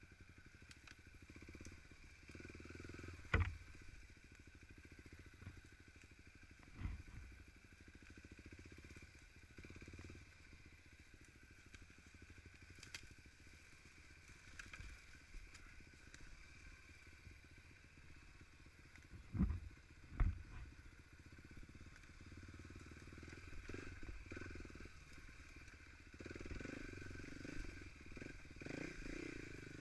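Dirt bike engine running at low speed along a rough trail. Four sharp knocks cut through it: one about three seconds in, another about seven seconds in, and a quick pair about twenty seconds in. The engine gets a little louder near the end.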